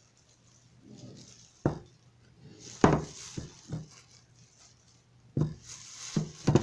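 Kitchenware clinking and knocking: about half a dozen sharp, irregular knocks of dishes and utensils being handled.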